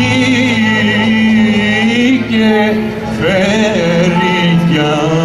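A man singing a Greek song of the Asia Minor tradition into a microphone, holding long notes with vibrato, with a small band of violin, guitars and keyboard accompanying him.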